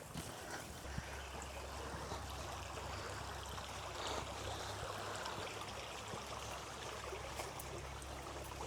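Steady rushing of a flowing creek, with a low steady hum underneath starting about a second in.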